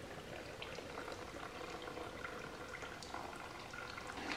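Oil draining from a Kubota B5100 tractor's opened housing in thin streams into a plastic drain pan, a faint, steady trickling and splashing.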